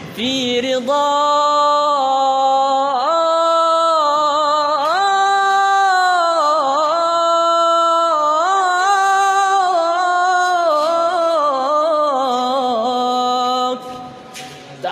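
A male nasheed singer's voice drawing out a long melismatic line on sustained vowels, the pitch sliding and turning in ornaments between held notes. The line breaks off for a breath about a second before the end.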